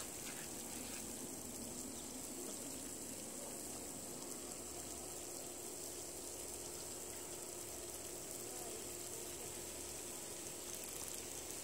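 Steady outdoor background: a constant high insect drone over an even low hiss, with a faint steady hum underneath.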